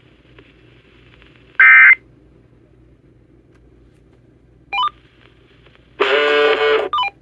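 Electronic beeps and tone bursts from equipment: a loud short beep about one and a half seconds in, a brief two-tone blip near five seconds, then a louder buzzy beep about six seconds in followed at once by another two-tone blip, like keypad or dialing tones. A faint steady hum lies underneath.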